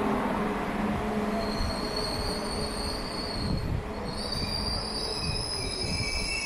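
YHT high-speed train moving through the station with a steady low rumble. About a second and a half in, high-pitched steel wheel squeal sets in, several shrill tones at once, and the squeal grows fuller from about four seconds in.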